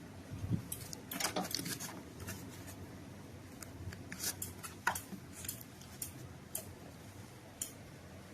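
A series of irregular small clicks and rattles from handling, a dozen or so spread over several seconds, with the sharpest click about five seconds in.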